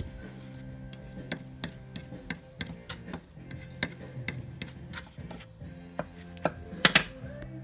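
A bad bearing clicking and knocking irregularly, a few sharp clicks a second, with a louder cluster of knocks near the end. Music plays underneath.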